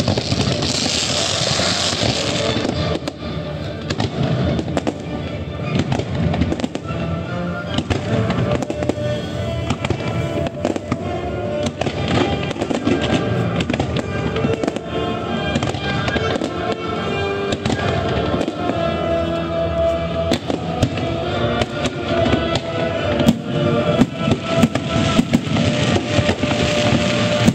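Fireworks bursting in rapid, overlapping succession, a dense run of bangs and crackles, over music played along with the show.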